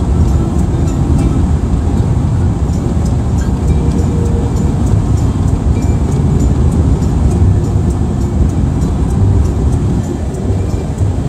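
Steady road and engine rumble of a car driving at speed, heard from inside, with music carrying a quick, even ticking beat over it.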